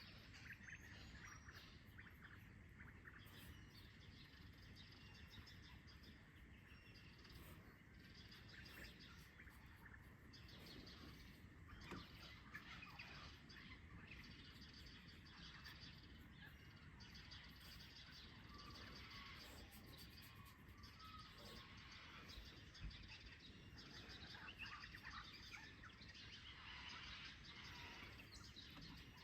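Faint birdsong: many small chirps and calls from distant birds, scattered and overlapping, over a quiet outdoor background hiss.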